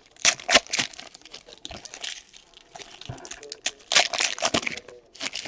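Trading card packaging being torn open and handled, a run of sharp crinkling and tearing crackles from the plastic or foil wrapping.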